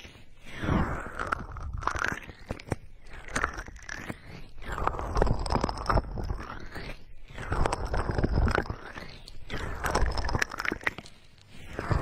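Fingers rubbing, pressing and cupping the silicone ears of a binaural dummy-ear microphone, close up. Crunchy, crackly rubbing comes in swells every second or two, with a deep muffled rumble under it.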